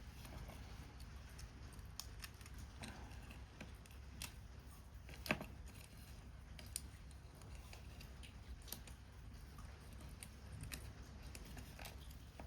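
Scissors snipping through paper, scattered single snips and clicks with one louder snip about five seconds in, over a faint steady rain hiss.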